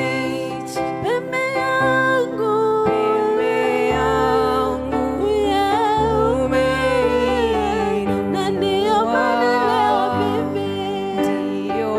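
Slow gospel worship music: a voice singing a wavering melody over held chords, with a deep bass coming in about four seconds in.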